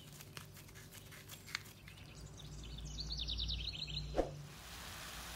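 A bird chirping a quick run of repeated high notes in two short phrases over a low hum, with a few soft clicks before it and one sharp click just after.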